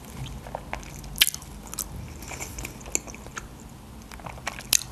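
A person chewing and biting food close to the microphone, a soft run of mouth sounds broken by short sharp clicks; the loudest clicks come about a second in and near the end.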